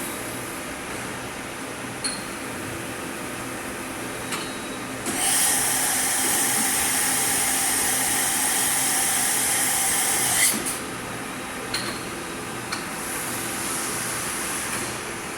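Correa FP-50/60 CNC bridge milling machine running, with a steady hum and a few short clicks. From about five seconds in, a louder, high hissing whine joins, then cuts off suddenly about ten and a half seconds in.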